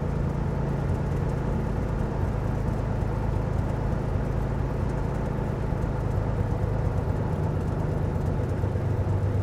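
Cessna 206H's six-cylinder Lycoming IO-540 engine and propeller running steadily at low power during a ground run-up check, heard from inside the cabin. Its note eases slightly lower as the RPM is brought down from about 1,140 to 1,030.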